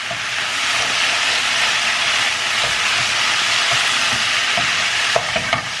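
Tuna masala frying in the pan on a low flame, a steady sizzling hiss, with a few light clicks near the end.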